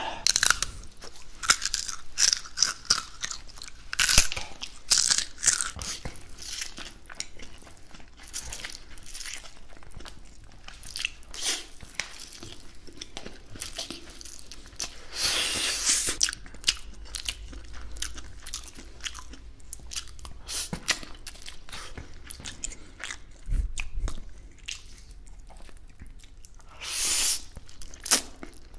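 Close-miked eating: crunchy bites and wet chewing of crispy fried chicken, with slurps of spaghetti noodles about halfway through and again near the end.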